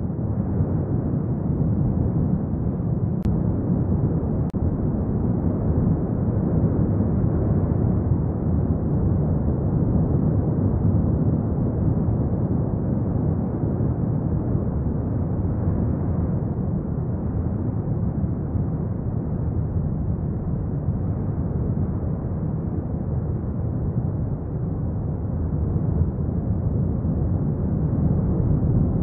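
A continuous deep rumbling roar, steady throughout, with no distinct strokes or rhythm.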